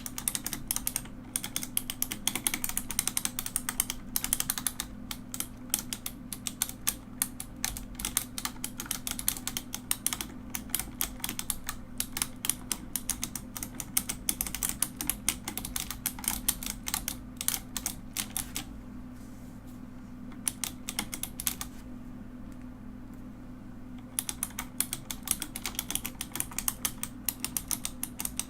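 Mechanical keyboard being typed on quickly, a dense run of key clicks and clacks. The typing stops for about five seconds about two-thirds of the way through, then resumes. A low steady hum runs underneath.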